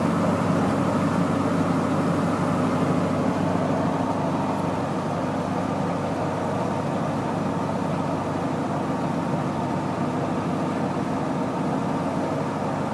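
Steady engine and road noise of a moving vehicle, heard from inside the cabin.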